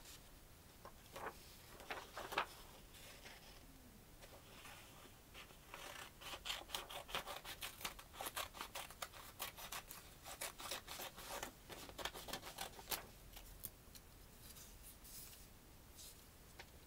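Scissors snipping through a sheet of paper. A few separate snips and rustles come early, then a quick run of cuts, several a second, lasting about seven seconds, then the paper is handled.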